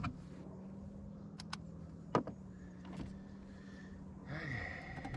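A steady low electric-motor hum that fades out about four seconds in, with a few sharp clicks and knocks, the loudest about two seconds in, and a short noisy rush near the end.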